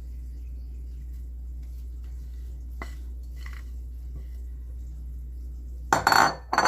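Kitchen utensils working cake batter into a baking tray: a few faint light clicks, then near the end a brief loud scrape and clatter against the tray, over a steady low hum.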